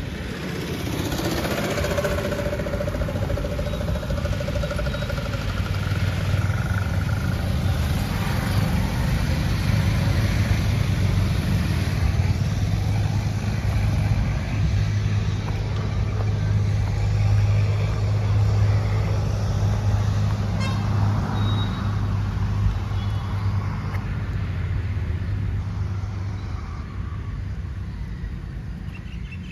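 Steady low drone of motor-vehicle engine and road noise, continuous and without breaks.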